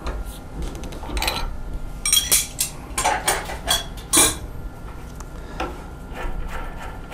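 Metal tools clinking and rattling as the 6 mm end mill is taken out of a CNC milling machine's spindle and handled. Sharp clinks with a short ring cluster between about one and four seconds in, and lighter taps follow.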